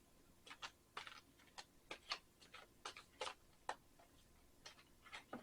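Faint, irregular clicks and light snaps of tarot cards being handled: shuffled, flipped and laid down, about fifteen small ticks over a few seconds.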